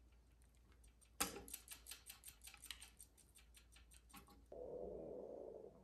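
Wire strippers stripping the insulation off DC power leads: a sharp snip and a rapid run of faint clicks, about six a second, that die away. A faint steady hum follows near the end.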